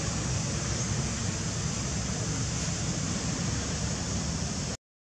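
Steady rushing outdoor background noise with no animal calls, cutting out completely for a moment near the end.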